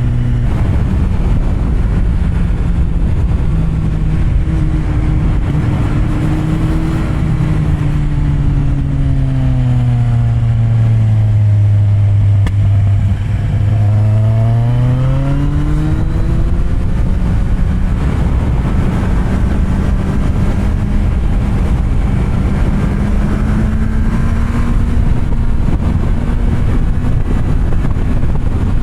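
Kawasaki Z750R inline-four with an SC Project exhaust, heard while being ridden. The engine note sinks as the bike slows, climbs quickly again as it accelerates about halfway through, then holds steady at a cruise.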